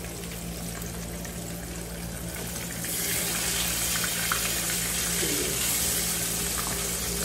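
Flour-coated chicken pieces frying in hot oil in a pan, a steady sizzle that grows louder and brighter about three seconds in as more pieces go into the oil. A steady low hum runs underneath.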